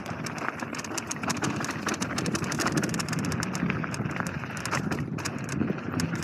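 A mountain bike rolling fast down a dirt trail: its tyres run over the packed dirt and gravel while the bike gives off a dense, irregular stream of clicks and rattles over the bumps.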